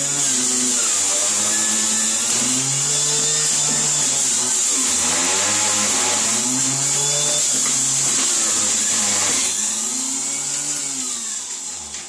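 Philips whole-fruit centrifugal juicer running and grinding whole carrots pushed down its feed chute, with a steady high whine; the motor's pitch sags and recovers again and again as each load hits the blade. The sound fades over the last two seconds as the motor runs down.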